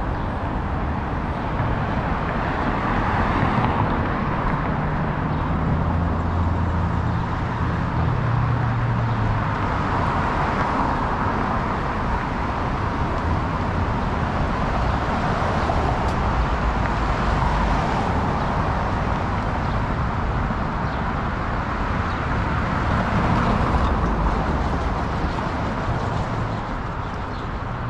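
Road traffic passing along a busy city street: cars going by in overlapping swells of tyre and engine noise, with a heavier vehicle's low engine hum for several seconds about five seconds in.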